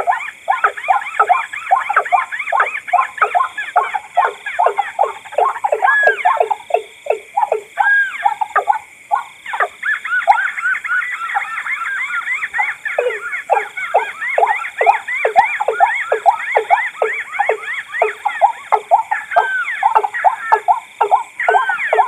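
Combined recorded calls of the watercock, white-breasted waterhen and crake, layered together: a fast, unbroken series of repeated hooked notes, several a second, with a few higher looping notes now and then.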